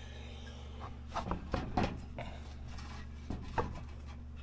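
Light metal clicks and scrapes as a snowmobile secondary clutch's washer and sheave parts are handled and fitted, with a few small knocks about a second in and again near three and a half seconds, over a steady low hum.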